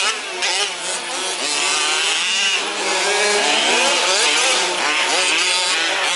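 Several 1/5-scale RC off-road trucks' small petrol two-stroke engines revving up and down together as they race, their pitches rising and falling out of step with one another.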